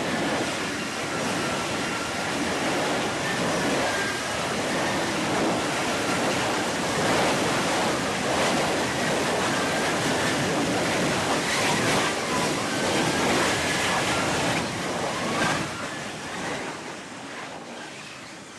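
F-35B Lightning II in a jet-borne hover, its F135 engine and shaft-driven lift fan making a loud, steady roar with a faint high whine over it. The roar falls away over the last few seconds as the jet settles onto the deck in a vertical landing.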